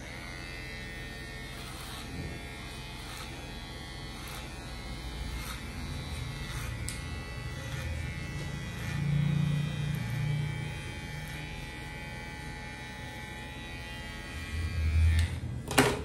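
Cordless electric hair clipper running steadily as it cuts hair over a comb at the back of the head. Near the end there is a brief low bump and then a sharp click.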